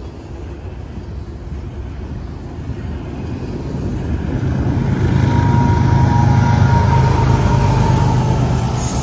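Norfolk Southern double-stack intermodal freight train rolling past close by. About four seconds in, the mid-train diesel locomotives come by and their engines' low, steady hum grows loud for several seconds, with a thin steady whine near the end.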